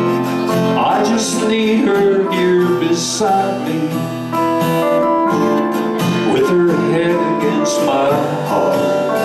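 Live band playing a country-style song: strummed acoustic guitar with electric guitar, and a man's voice singing over it.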